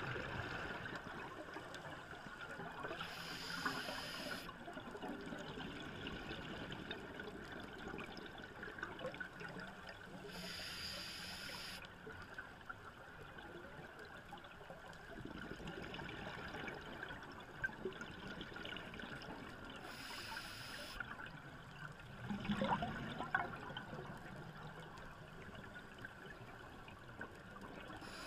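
Scuba diver breathing underwater through a regulator: three hissing inhales, each one to two seconds long and seven to ten seconds apart. Between them come the crackle and gurgle of exhaled bubbles, loudest about twenty-two seconds in.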